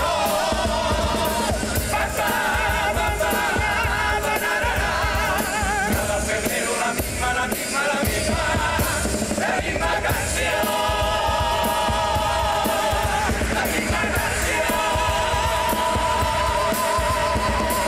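A comparsa choir of men singing in harmony over strummed Spanish guitars and drums, the closing phrase of their presentation song. In the second half they hold long sustained notes with vibrato.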